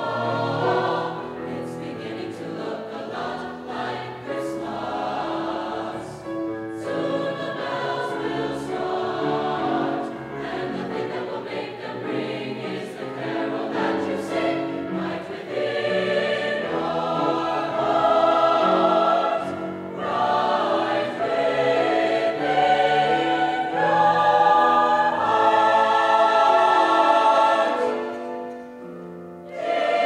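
Mixed choir of men's and women's voices singing in harmony, growing louder about halfway through and easing off briefly just before the end.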